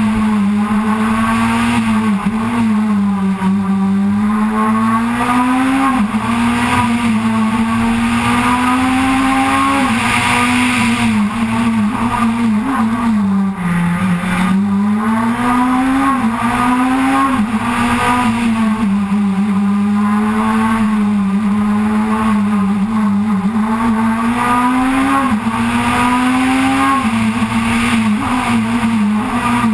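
Proton Super 2000 rally car's 2.0-litre naturally aspirated four-cylinder engine running hard, its revs rising and falling again and again as it is driven flat out, with the deepest drop about fourteen seconds in as it slows for a corner.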